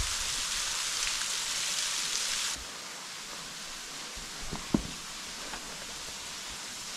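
Thin waterfall splashing steadily onto the rock floor below a sandstone overhang, a rain-like hiss. About two and a half seconds in it cuts off abruptly to a quieter steady rush of water, with one brief sharp click a little later.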